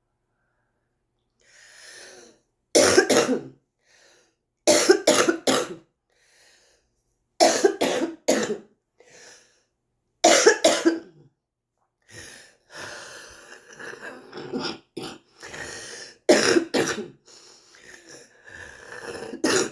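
A smoker coughing in fits: single harsh coughs and runs of three, then a longer stretch of quieter continuous sound broken by more coughs. A chest cough with airway congestion, which the uploader guesses is chronic bronchitis.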